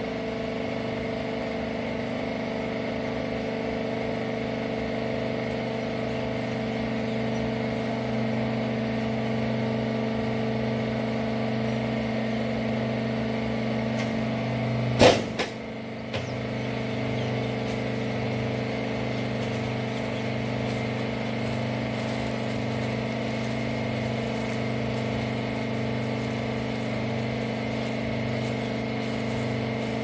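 Rag baler machine running with a steady mechanical hum, with one sharp knock about halfway through, followed by a brief drop in level before the hum carries on with a slightly changed tone.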